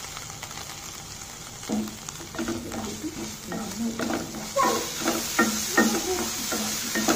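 Black spatula stirring and scraping chopped onions and tomatoes around a nonstick kadai, in repeated strokes that start about two seconds in, over the sizzle of the frying oil, which grows louder about halfway through.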